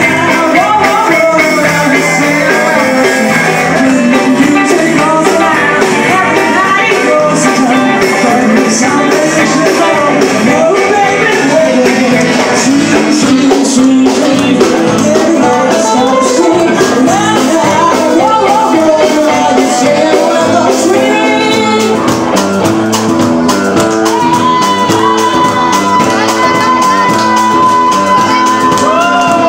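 Live rock band playing loudly: singing over electric guitar and drums, with a single high note held for several seconds near the end.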